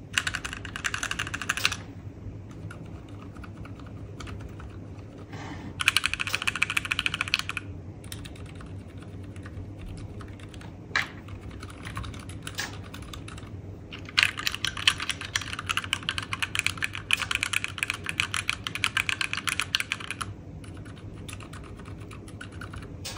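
Keys of a Keychron Q1 V2 mechanical keyboard tapped rapidly in bursts of clicks: a short burst at the start, another about six seconds in, and a long run from about 14 to 20 seconds, with a few single clicks between. The function row being tested mixes Gateron Ink V2 Silent Black switches on F1–F4 with the stock Gateron Pro Red switches from F5 on.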